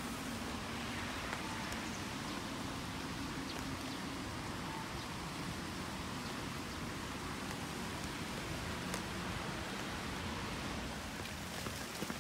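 Steady rain falling, with faint scattered ticks of drops striking umbrellas.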